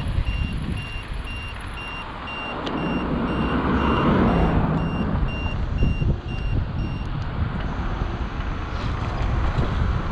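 An electric scooter's turn-signal beeper sounds rapid, evenly spaced high beeps that stop about seven seconds in, over wind buffeting the microphone and road rumble as the scooter rides along.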